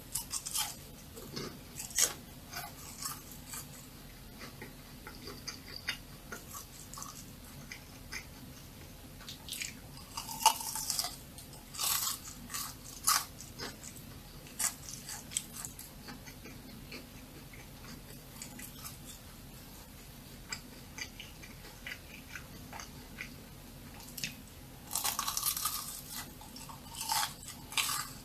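Crisp fried churros bitten and chewed close to a microphone: scattered crunches and chewing throughout, with denser bursts of crunching about ten seconds in and again near the end.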